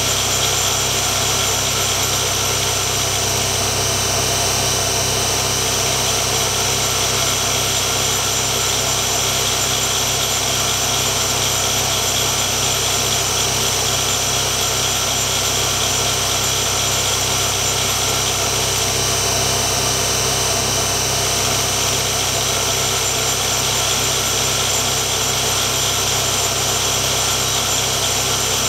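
Tool-and-cutter grinder running steadily, its cup grinding wheel and workhead both spinning while the end face of a steel pivot tube held between centers is ground square to correct an angled part-off. It makes an even, continuous machine sound with several fixed tones throughout.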